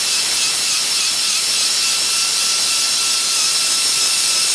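Compressed-air tool running: a steady high-pitched whine over a strong hiss of air.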